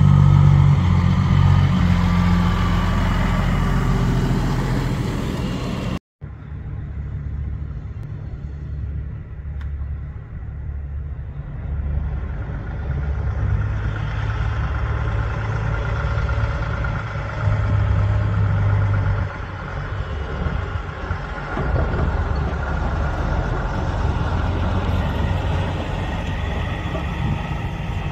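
Diesel engines of big-rig semi tractors running as they drive slowly past, a low steady engine note that steps up and down in pitch. The sound cuts out briefly about six seconds in, then a second truck pulling an aluminium end-dump trailer goes by.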